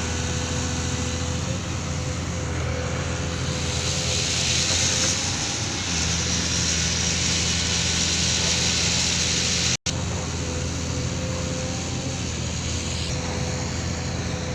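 Excavator's diesel engine running steadily, with a thin steady whine over its drone. The engine gets louder through the middle, and the sound drops out for an instant about two-thirds of the way through.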